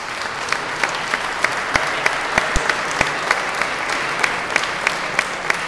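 Audience applauding, with one set of louder claps close by, steady at about three a second.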